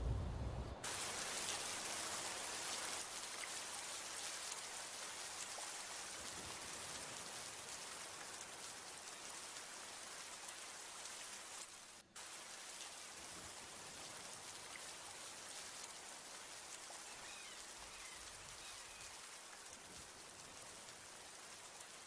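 Steady, even hiss of rain, starting abruptly about a second in after a low rumble, with a brief dropout about twelve seconds in.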